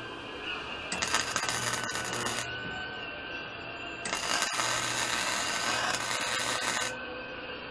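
MIG welder arc running in two bursts on steel go-kart frame tubing: one of about a second and a half starting about a second in, and a longer one of about three seconds starting about four seconds in.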